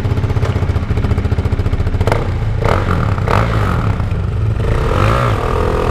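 KTM Duke 390's single-cylinder engine held at high revs during a burnout, its rear tyre spinning and scrubbing on concrete. A wavering tyre squeal comes in near the end.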